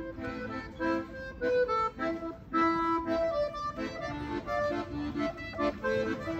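Accordion being played: a melody of changing notes over held chords.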